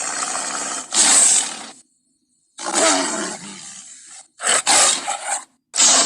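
Big-cat roars and snarls used as saber-toothed cat (Smilodon) sound effects. There are several separate calls, each cut off abruptly, with short silent gaps after about two seconds and again near the end.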